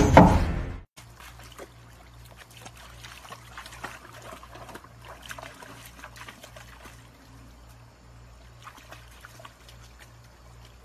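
A loud burst of music and voice cuts off sharply about a second in, giving way to a shallow stream trickling faintly over rocks.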